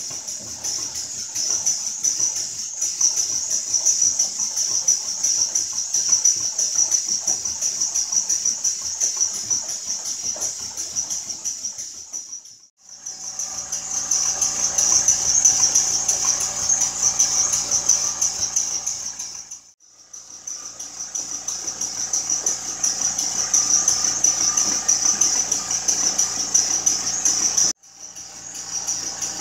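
Small PM Research 6CI steam engine running, with a steady high hiss and a fast, even pulsing. The sound breaks off abruptly three times.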